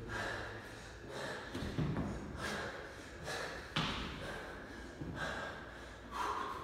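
An athlete's hard, rapid breathing between bar muscle-ups, about one breath a second. Thuds sound as he lands, drops to the gym floor for a burpee and jumps back up to the pull-up bar.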